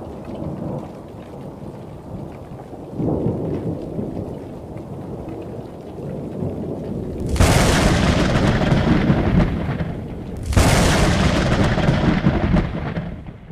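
Thunder rumbling low, then two sudden loud cracks of thunder, about seven and ten seconds in, each rolling off over a couple of seconds, with rain falling underneath.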